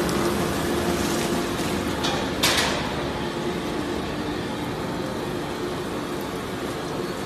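Industrial waste shredder and its discharge conveyor running: a steady mechanical din with a constant hum underneath. One sharp, loud crack comes about two and a half seconds in.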